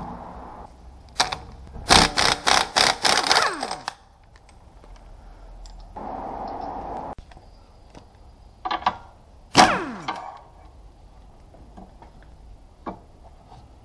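Sharp metallic knocks: one about a second in, then a rapid run of about four a second, then a few more single bangs near the end, the loudest one ringing down in pitch afterwards.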